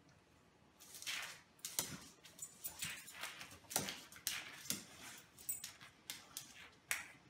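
A golden retriever scuffling on a tile floor as it reacts to a lemon slice, pawing and rubbing its face on the tiles. From about a second in there is a quick run of short scrapes and noisy huffs, several a second.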